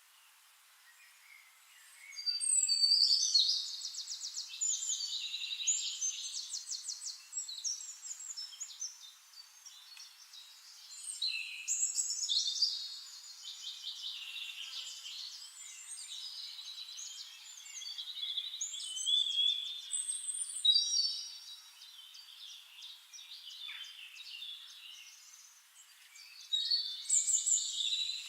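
Birdsong: several phrases of rapid high chirps and trills, starting about two seconds in and recurring every few seconds, with quieter twittering between them.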